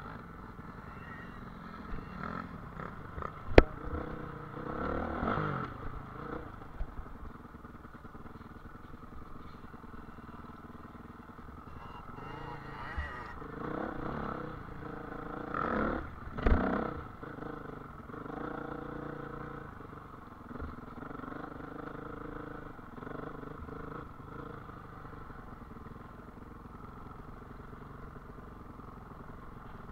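Off-road motorcycle engine running as it rides over rough grassy ground, rising and falling in several revs, with a sharp knock about three and a half seconds in.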